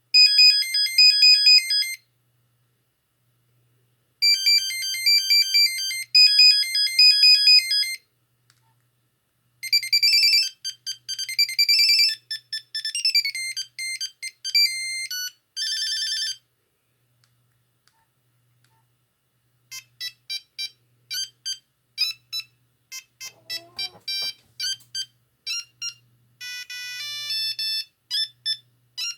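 Nokia 6310i mobile phone playing several of its built-in monophonic ringtones in turn: short, high, beeping melodies separated by pauses of silence.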